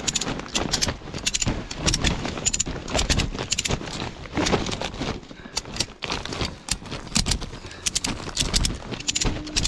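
Irregular crackling and rustling of a plastic tarp being handled and pulled, with many scattered sharp clicks.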